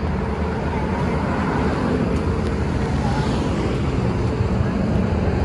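Road traffic passing, mixed with wind rumbling on the microphone, as a steady noisy wash without clear breaks.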